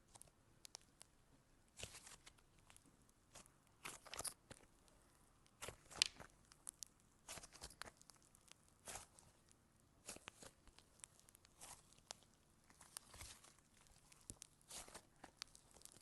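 Slime being squeezed and stretched by hand, giving faint, irregular crackles and small pops, the sharpest about six seconds in.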